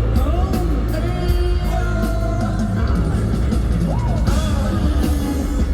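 Male K-pop group singing live over loud amplified music with heavy bass and a steady drum beat.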